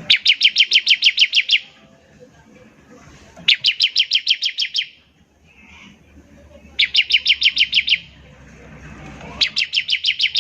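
Ciblek (bar-winged prinia) singing its rapid 'nembak ngebren' trill: four bursts of fast repeated high notes, each about a second and a half long at roughly eight notes a second, with short pauses between them.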